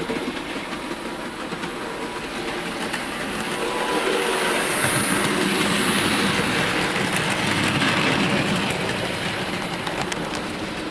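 Model railway goods train of wagons rolling along the track with a light clickety-clack. It grows louder from about four seconds in as the wagons pass close, then eases off again near the end.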